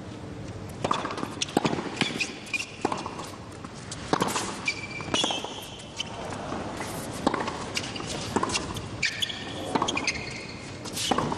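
Tennis rally on a hard court: racquets striking the ball back and forth about once a second, with short squeaks of the players' shoes as they change direction, over a steady murmur of the arena.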